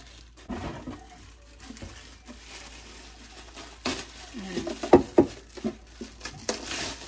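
Packaging crinkling and irregular clicks and knocks of kitchen storage container pieces being handled, with sharper, more frequent knocks in the second half.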